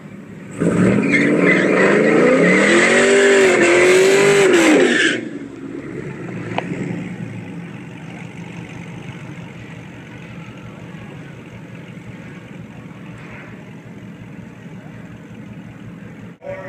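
Pontiac G8 GT's 6.0-litre V8 revving up and down through a burnout from about half a second in, with the rear tyres spinning and screeching for some four and a half seconds. It then drops to a low idle as the car rolls forward.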